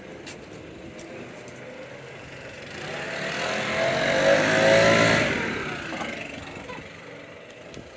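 A vehicle drives past: its engine and tyre noise swell to a peak about four to five seconds in, then fade away.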